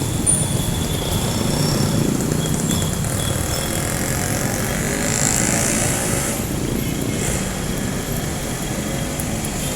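Street traffic dominated by jeepney engines running close by, a steady low rumble.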